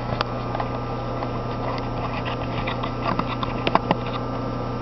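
Steady electrical hum of shop machinery, with a few light clicks and taps about three to four seconds in.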